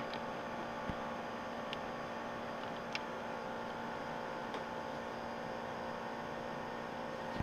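Steady electrical hum and room noise, with a few faint clicks and taps as a diecast model car is handled and turned over in the hand.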